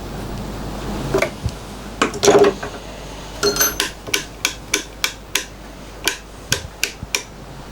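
Hand tools clicking and clattering on metal parts during assembly: a short clatter early, then a series of sharp separate clicks, about two or three a second.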